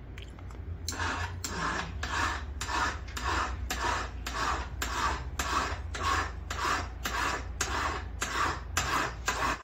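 Hand file rasping back and forth on a metal ring being shaped by a jeweler, in even strokes about two and a half a second, starting about a second in.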